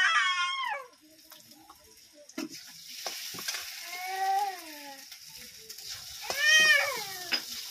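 A cat meowing several times, drawn-out meows that rise and fall, the loudest about six and a half seconds in. Underneath, vegetables sizzle in a wok and a spatula clicks and scrapes against the pan.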